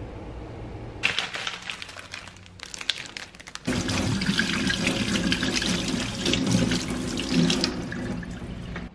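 Kitchen tap running onto hands being washed in a stainless steel sink. Irregular splashing gives way, a little over a third of the way in, to a steady, louder stream of water.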